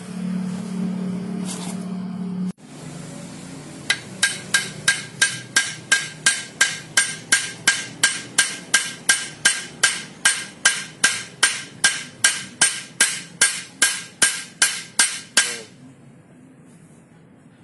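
Hammer blows peening the rivets of a motorcycle clutch housing (clutch basket) after new rubber dampers are fitted. The strikes come in an even run of about three a second for roughly eleven seconds, each with a metallic ring. Before the hammering, a steady low hum cuts off abruptly a couple of seconds in.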